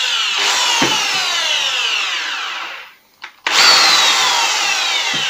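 Fiolent electric drill's motor whining in two short runs, working again after a burnt-off wire on its switch terminal was resoldered. Each run starts suddenly and falls in pitch as the trigger is let go and the motor spins down; the second run starts about three and a half seconds in.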